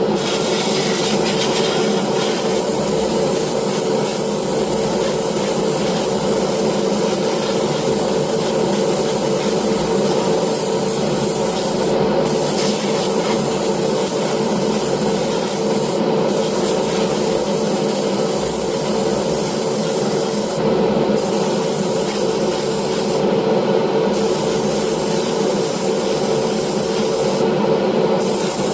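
A steady machine hum with a continuous hiss over it. The high part of the hiss thins briefly about five times.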